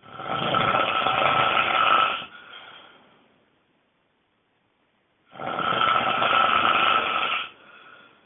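A person snoring extremely loudly: two long snores about five seconds apart, each lasting about two seconds and trailing off into a fainter breath.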